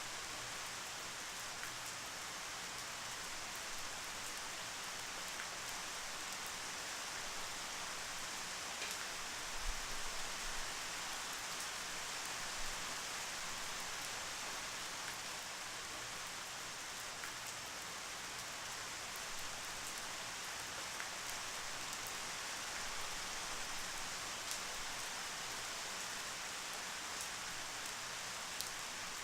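Steady rain falling: an even hiss with scattered drop ticks. A brief low thump comes about ten seconds in.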